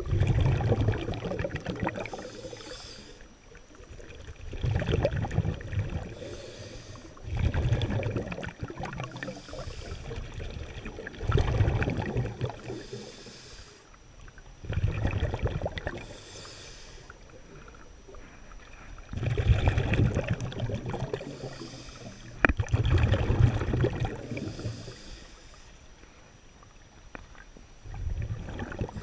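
Scuba diver breathing through a regulator underwater: a soft hiss on each inhale, then a loud low rumble of exhaled bubbles, repeating about every three to four seconds.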